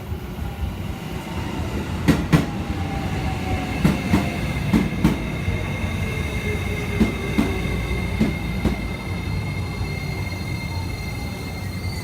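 JR East E653-1100 series electric train running, its Hitachi IGBT VVVF inverter tones sliding slowly down in pitch over a steady rumble. Wheels click over rail joints in pairs that spread further apart, a sign that the train is slowing down.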